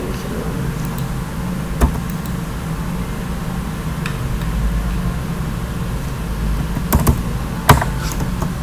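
Computer mouse clicking: a sharp click about two seconds in and two more close together near the end, over a steady low background hum.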